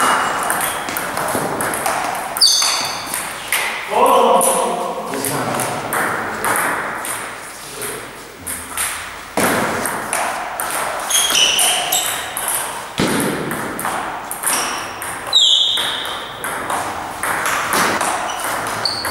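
Table tennis rallies: the ball clicking off the table and the paddles in quick back-and-forth strokes, with a few short high squeaks from shoes on the hall floor.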